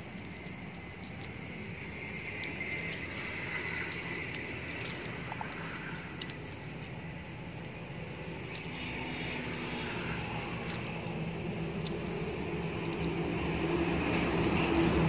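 Small scattered clicks and rustles of a nylon cast net and its weighted edge being handled as fish are picked out of the mesh. Under them a low engine drone, as of a passing vehicle, grows louder toward the end.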